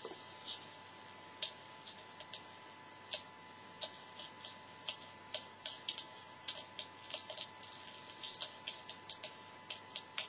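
Small speaker of a homemade transistor preamp-and-amplifier circuit putting out irregular clicks and crackles over a faint steady whine and hiss. The clicks come closer together near the end.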